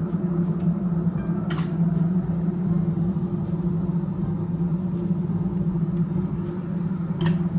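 A steady low hum runs throughout while seasonings are put into a stainless steel pot of hot water on the stove. A few light clinks come about half a second in, a second later, and near the end.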